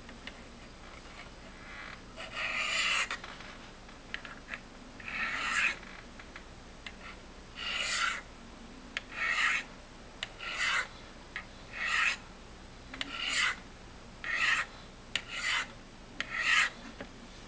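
A Spyderco Endura's steel blade drawn down the corners of a Spyderco Sharpmaker's ceramic stones in about ten separate scraping strokes, one every second or so. The strokes begin about two seconds in, and the later ones are shorter than the first.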